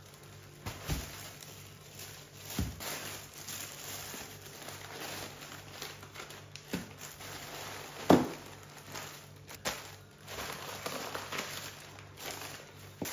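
Thin plastic grocery bags rustling and crinkling as they are handled and set down on a table, with a few soft thumps of items being put down, the loudest about eight seconds in.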